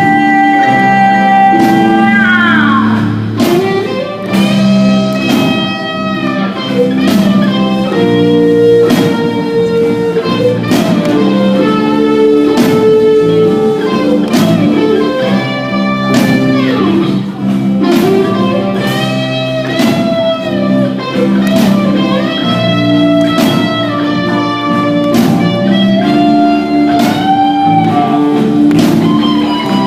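Live rock band playing an instrumental passage: a lead guitar line with notes bent up and down in pitch, over a steady drum beat and sustained chords.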